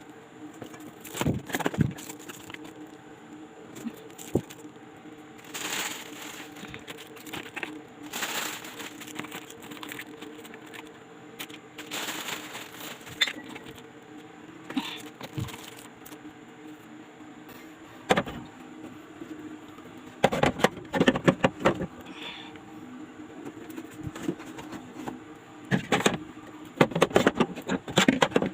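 Groceries being loaded into a refrigerator: clusters of clinks, knocks and rattles as bottles, drink packs and other items are set on the shelves, over a steady low hum.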